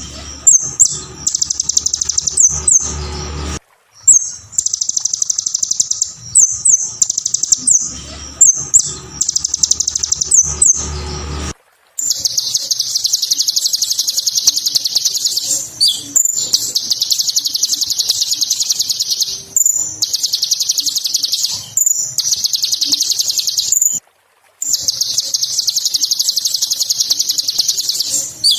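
Kolibri ninja sunbird singing a fast, high-pitched chattering song in long unbroken runs with brief pauses, cut off abruptly a few times. A low hum runs under the first part.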